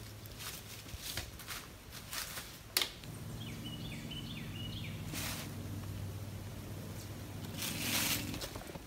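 Footsteps crunching through dry fallen leaves on a rocky trail, with a sharp click about three seconds in. A steady low hum runs through the second half, and there is a louder rustle of leaves near the end.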